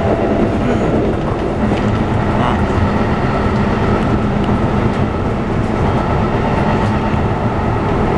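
Keikyu 600-series electric commuter train running, heard inside the passenger car: steady humming of the traction motors and wheels on rails. A short gliding tone near the start comes from the Toyo GTO-VVVF inverter drive.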